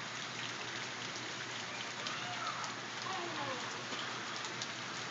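Hail falling steadily: a dense, even patter of small ice pellets striking the ground and nearby surfaces, with many tiny clicks scattered through it.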